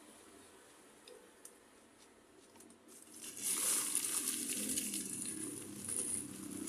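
A few faint clicks, then from about three seconds in a loud crinkling and rustling that keeps going.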